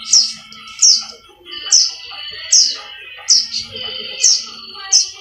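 Fledgling plain prinia (ciblek sawah) giving loud, short, downward-sweeping chirps about once a second, the begging calls of a nestling during hand-feeding.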